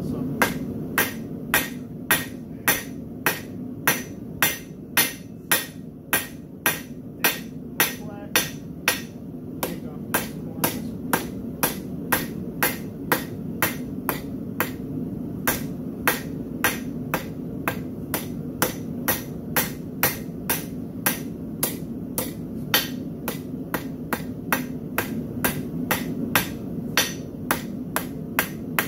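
Hand hammer striking a red-hot steel bar on an anvil: sharp metal-on-metal blows, about two a second, keeping a steady rhythm with a few short pauses.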